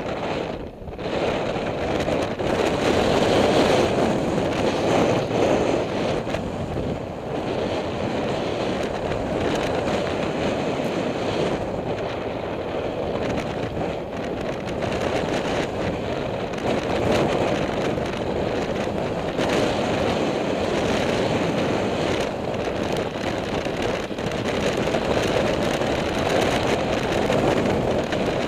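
Motorcycle riding along, heard from a camera mounted on the bike: steady wind noise on the microphone over the running engine.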